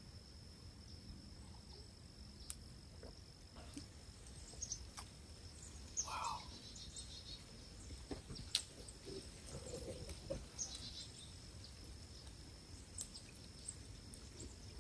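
Quiet outdoor ambience: a faint steady high-pitched tone, with scattered small clicks and taps and a brief louder sound about six seconds in.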